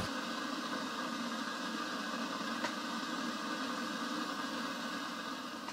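Enamel kettle heating on a small portable gas stove: a steady hiss of the burner and warming water.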